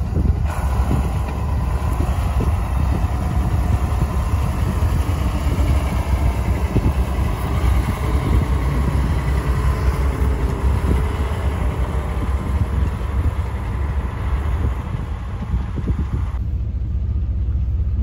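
Engine of a red grain truck loaded with soybeans, running with a steady low rumble as the truck moves out past. Near the end the sound changes suddenly to the duller hum heard inside a vehicle cab.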